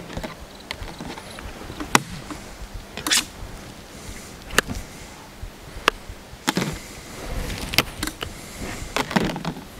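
A plastic fly swatter being swung: three swishes through the air, with four sharp smacks scattered between them.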